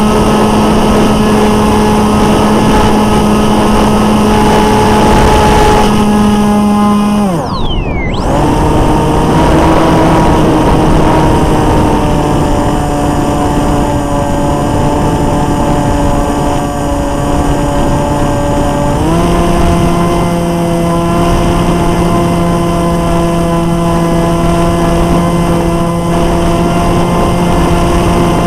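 Brushless electric motor and propeller of a small RC flying wing, heard up close from a camera mounted on the airframe, running at a steady high-pitched whine. About seven seconds in the throttle is pulled back and the whine falls away sharply. It picks up again at a lower pitch and steps up to a higher throttle setting about two-thirds of the way through.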